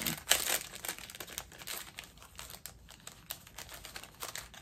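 Packaging of a sticker pack crinkling and rustling as it is handled and opened by hand, in quick irregular crackles, the loudest just after the start.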